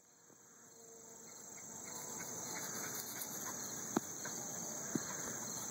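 Steady high-pitched chorus of insects, with a faint regular pulsing, fading in over the first two seconds. Two short sharp clicks come about four and five seconds in.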